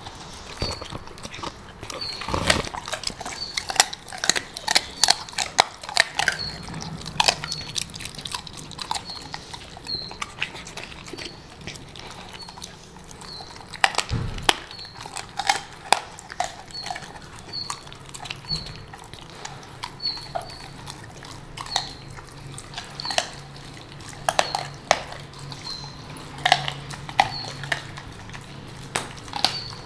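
Rottweiler chewing chicken feet: irregular sharp crunches and cracks as the bones break between its teeth, coming in quick runs with short pauses.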